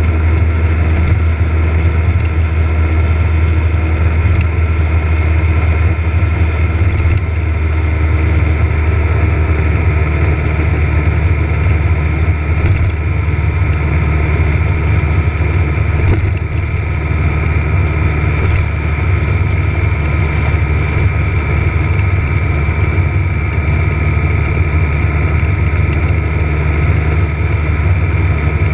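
Motorcycle engine running at a steady, even speed at low road speed, heard from a camera mounted on the bike, with a steady high whine above the engine note.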